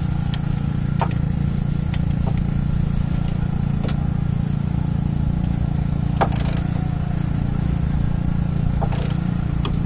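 A few sharp clicks from an ETOOLAB half-inch-drive click torque wrench as a bolt is pulled to 50 foot-pounds; the click is the sign that the set torque has been reached. A steady low rumble runs underneath.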